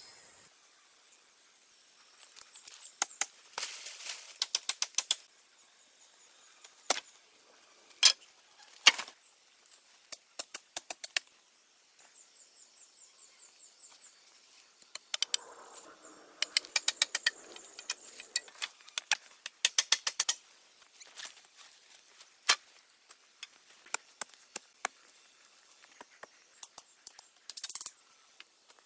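Knife work on bamboo sticks: irregular runs of sharp clicks, taps and scrapes, with a few seconds of rustling in dry leaf litter around the middle.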